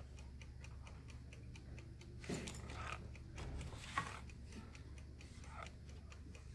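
Quiet writing at a desk: a marker scratching on paper, with a louder click about four seconds in. Underneath runs a faint, quick, even ticking, about five a second, over a low steady hum.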